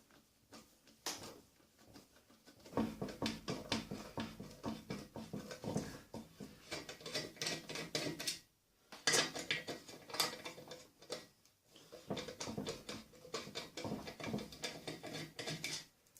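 Metal scraping and clicking against metal in irregular bursts, separated by short pauses, as a tool is worked by hand into the fence mounting on the saw's metal.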